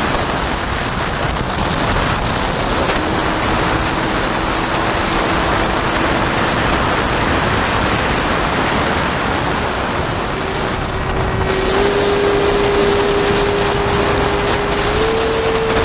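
Wind rushing steadily over the microphone of an Arrows Prodigy 1400mm electric RC plane in flight. A thin steady motor whine comes in about three seconds in and drops out after six. It returns near ten seconds and steps up in pitch twice as the throttle is raised.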